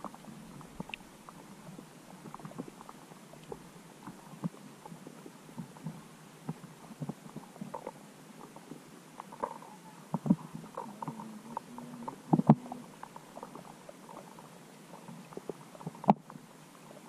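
Muffled underwater sound picked up by a submerged camera: faint gurgling with scattered small clicks and pops, and a few sharper clicks in the second half.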